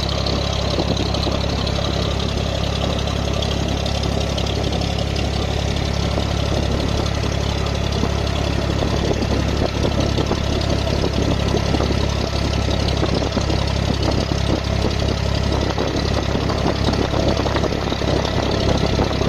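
Diesel engine of an abra water taxi running steadily under way, a constant low drone, with water rushing and splashing along the hull.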